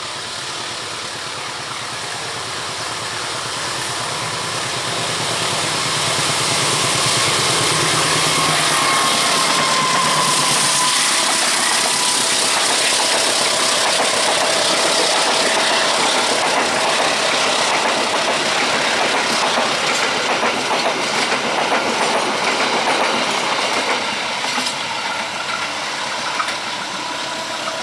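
A train passing close by. The locomotive's engine hum builds over the first several seconds, then the cars rush past, with wheels clicking rapidly over the rail joints.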